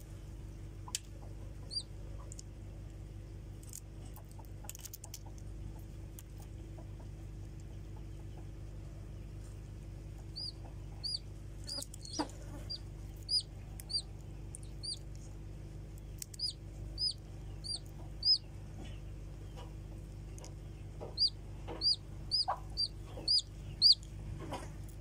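Chicks peeping: short, high cheeps, a few a second, coming in runs from about ten seconds in, over a steady low hum.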